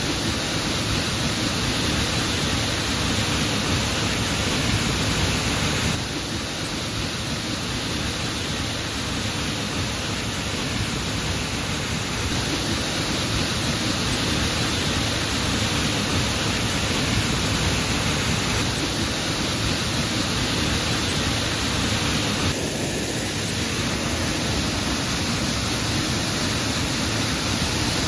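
Glen Ellis Falls, a waterfall on the Ellis River, pouring into its plunge pool: a loud, steady rush of falling water.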